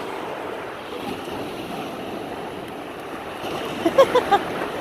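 Surf washing on a beach, a steady rush of waves. About four seconds in come a few short, pitched voice calls.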